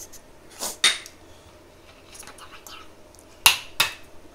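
An egg being knocked against the rim of a mixing bowl to crack it: two sharp clicks about three and a half seconds in, with a lighter click just under a second in.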